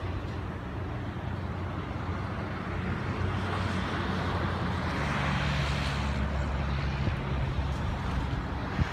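An engine running steadily, growing louder and stepping up a little in pitch about halfway through, with a rush of noise that swells and fades around the middle.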